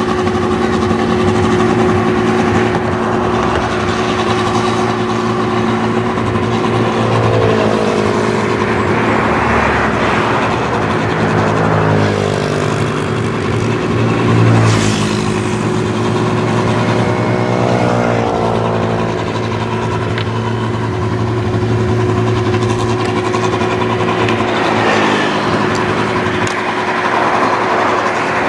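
Rice combine harvester running steadily as it works through the paddy, its engine a constant drone with a steady whine above it. The pitch shifts a few times as it works.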